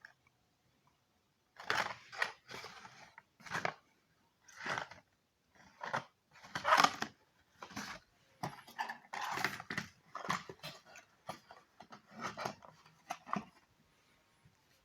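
Medicine packaging being handled: irregular crinkling and rustling in bursts, stopping shortly before the end.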